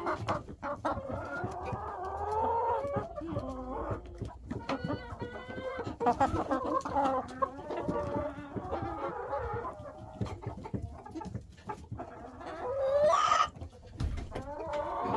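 A flock of chickens clucking continuously in a coop, several birds calling over one another, with a few light knocks. About thirteen seconds in, one bird gives a loud rising call that stands out above the clucking.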